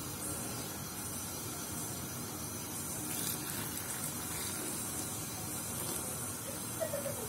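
Hot sugar syrup poured in a steady stream from a metal pot into glass jars packed with peach halves, filling them.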